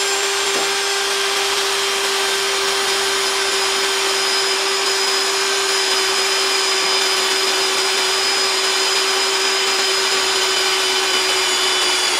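Mollar CD12300 12 V brushless cordless drill on its low speed (speed 1), boring through steel angle iron dry, without cutting oil: a steady, unbroken whine at one held pitch.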